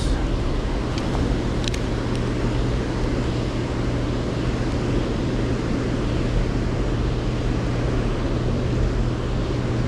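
Steady rushing of churning tailwater below a hydroelectric dam's running generator, with a steady low hum under it. A few faint clicks come in the first two seconds.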